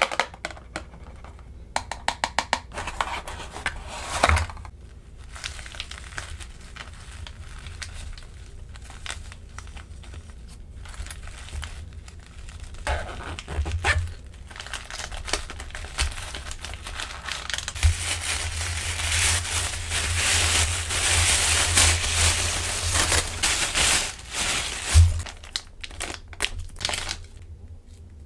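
Toy packaging being opened and handled close to the microphone: a run of sharp clicks and knocks near the start, then plastic and paper wrapping crinkling and tearing, densest for several seconds in the second half.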